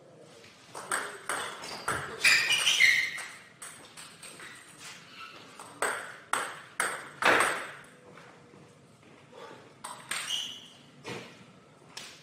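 Table tennis ball being played: sharp clicks of the ball on the rackets and the table in short irregular runs, loudest and most crowded about two to three seconds in.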